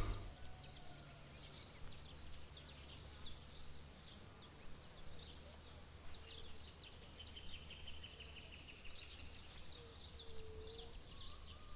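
Outdoor nature ambience: a steady, high-pitched insect trill like crickets, with a few faint bird calls over a low background hum.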